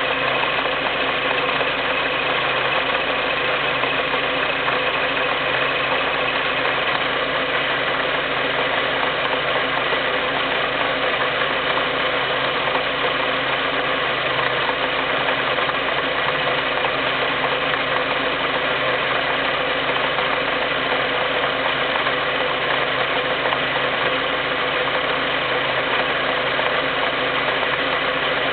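First-generation Skoda Fabia (6Y2) running steadily, a constant mechanical hum with several steady tones and no change in speed, carrying an abnormal noise that the owner puts down to the transmission.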